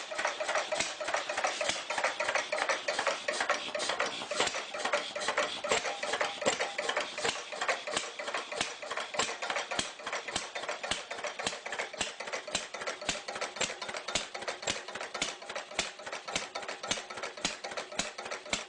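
A small engine running at an even pace, with a rapid, regular clatter of clicks several times a second.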